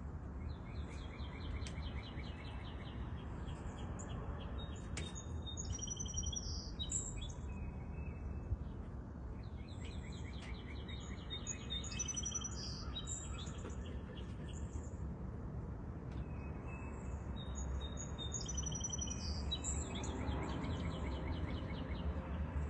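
A songbird singing the same song three times, about seven seconds apart: each song opens with a fast run of repeated notes and ends in higher, more complex notes. A steady low rumble runs underneath.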